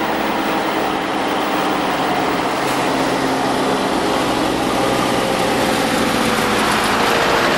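Tractor with a trailer approaching on a road, its diesel engine running steadily and growing slightly louder as it comes nearer.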